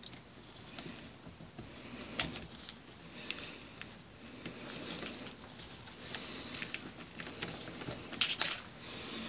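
Light metallic clicks and rustling from a socket on an extension being turned on a band-type piston ring compressor clamped around the pistons of a Honda Rebel 250 engine, as the clamp is adjusted. The sharpest click comes about two seconds in, with a run of clicks near the end.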